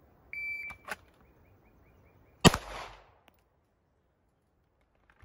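Shot timer's start beep, then a short click and, about two seconds after the beep, a single loud 9mm shot from a Walther PDP pistol with its echo trailing off. The timer reads 2.14 seconds from beep to shot.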